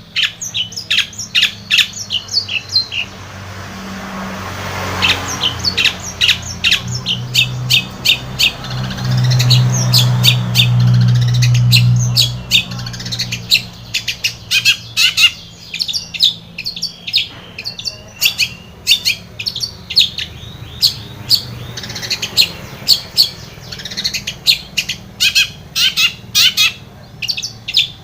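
Long-tailed shrike (cendet) singing a fast, chattering run of short, sharp notes, many per second. A low hum swells up beneath it for several seconds in the first half.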